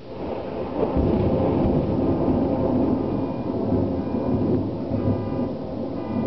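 Thunder from a monsoon thunderstorm: a loud rumble that starts suddenly, builds to its loudest about a second in, and rolls on, slowly fading.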